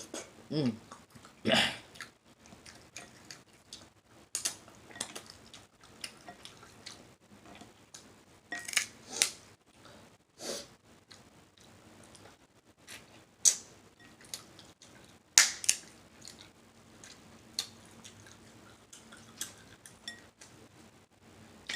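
Close-miked mukbang eating: wet mouth smacking and chewing, with irregular sharp clicks and smacks several times a second and a few louder ones.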